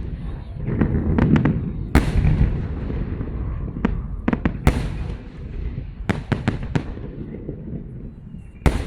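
Fireworks salute: sharp bangs of bursting shells, some single and some in quick clusters of three or four, over a continuous low rolling rumble of echoing detonations. The loudest bangs come about two seconds in, about five seconds in, and near the end.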